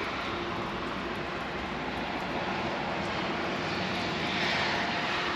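Steady outdoor background noise: an even rushing hiss with a faint, steady low hum, swelling slightly near the end.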